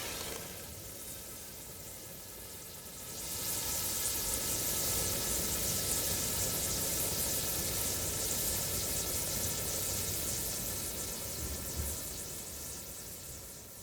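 Water bubbling sound effect: a quieter first three seconds, then a loud dense hiss of fizzing bubbles that fades away near the end.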